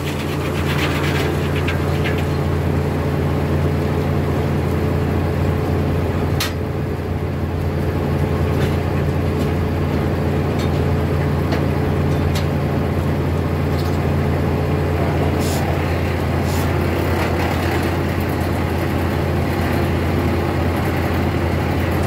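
Foley Belsaw sawmill running steadily, its circular head saw spinning free without cutting, with a deep even hum. A few sharp knocks come through, about six seconds in and again after fifteen seconds.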